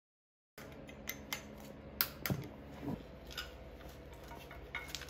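Scattered light clicks and rattles of wiring and plastic connectors being handled on the engine as the fuel-injector loom is laid out, starting about half a second in, a few clicks louder than the rest.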